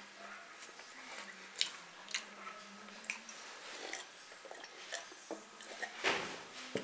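Close-up chewing and biting of food, with scattered wet mouth clicks and a louder stretch of chewing about six seconds in.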